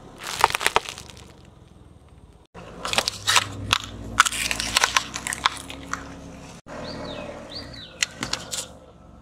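A car tyre rolling over and crushing small objects in three short takes. Wrapped chocolate wafer bars crackle and crunch first. Toy mushrooms crack and crunch under a low engine rumble next, then a small toy bird cracks, with a couple of short squeaks.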